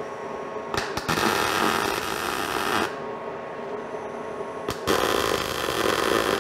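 MIG welder arc crackling on steel square tube in two runs of about two seconds each, each starting with a sharp click as the arc strikes, over a steady hum.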